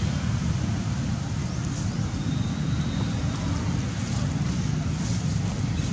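Steady low rumble of wind buffeting the microphone, with a faint thin high tone for about a second in the middle.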